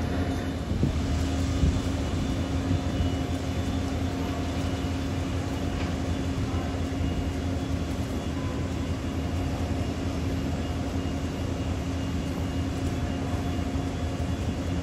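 Steady airport ramp drone: a constant mechanical hum with a few held tones from parked aircraft and ground equipment, with no single event standing out.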